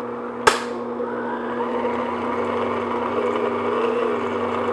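Electric stand mixer's motor running steadily on medium-low speed, its flat beater mixing a cake batter in a glass bowl. A single sharp click about half a second in.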